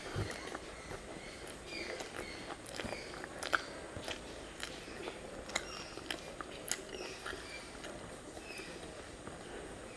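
A person eating rice by hand: chewing and wet mouth clicks, with fingers squishing rice on a banana leaf, as irregular small clicks throughout.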